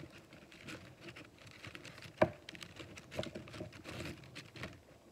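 Crinkly plastic cookie wrapper rustling and crackling in irregular small bursts as a hand rummages in the open package, with one sharp tap about two seconds in.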